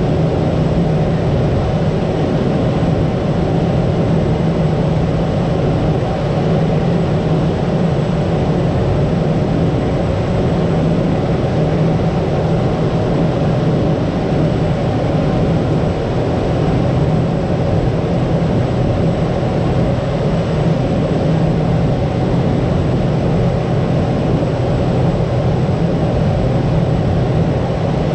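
Steady drone of a Cessna 208 Grand Caravan's Pratt & Whitney PT6A turboprop engine and propeller, with a constant low hum and a hiss of rushing air over it.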